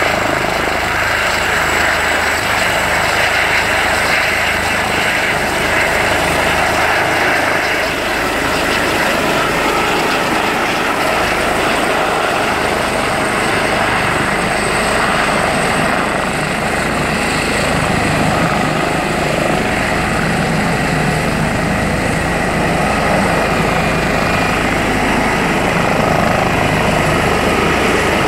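Airbus EC145 T2 helicopter lifting off and climbing away, its twin turboshaft engines and main rotor running at high power. It is loud and steady, a high turbine whine over the rotor noise.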